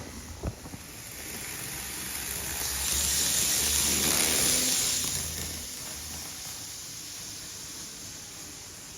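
A train passing by: rumble and hiss swell to a peak about three to five seconds in, then fade away.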